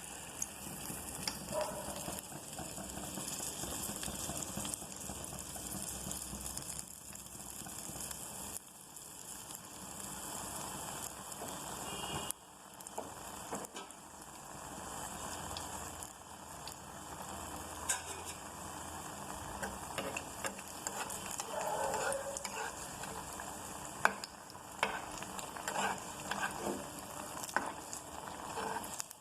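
Sweet rice-and-banana paniyaram batter deep-frying in moderately hot oil, a steady sizzle, with a few sharp clicks scattered through it.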